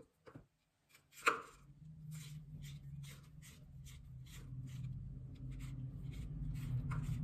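Metal handle sections of a spin mop being twisted and screwed together: a sharp knock about a second in, then light repeated clicks at about three a second, with a steady low hum underneath from about two seconds in.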